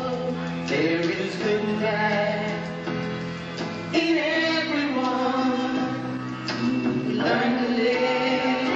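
Group of voices singing a melody over steady held low notes.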